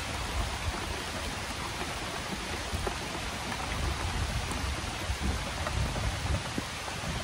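Steady heavy rain: a dense, even hiss of falling rain with a low rumble underneath.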